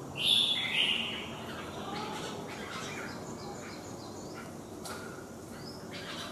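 Caged red-whiskered bulbuls calling: a loud, scratchy call in the first second, then softer scattered chirps and short whistled notes.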